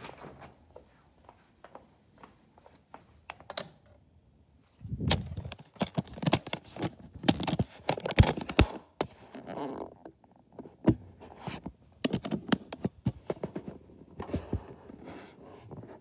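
Handling noise on a phone's microphone: rustling and rubbing with an irregular string of knocks and clicks as the phone is carried and moved about with its lens covered.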